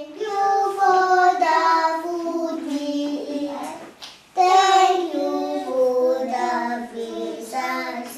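Young children singing a short sung grace before a meal, in two phrases with a brief pause about four seconds in.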